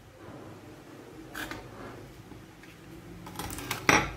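Vinyl electrical tape being pulled off its roll and wrapped by hand, crackling as it peels. Near the end there is a sharp knock as the roll is set down on the wooden table.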